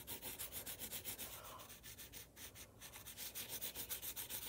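Graphite pencil shading on paper: rapid back-and-forth strokes, about nine a second, easing off for a moment around halfway before picking up again.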